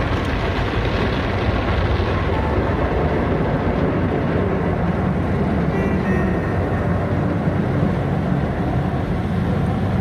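Automatic car wash heard from inside the car: water spray and foam pouring over the windshield and body make a steady, loud rushing noise with a low rumble.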